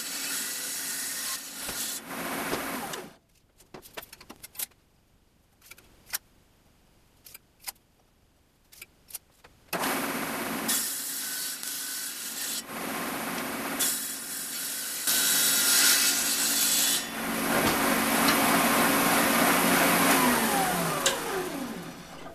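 Table saw cutting quarter-inch MDF: the motor runs with the rushing noise of the blade in the board and cuts off sharply about three seconds in. Several quiet seconds with a few light clicks follow. Then the saw runs again, gets louder through two cuts, and winds down with a falling tone near the end.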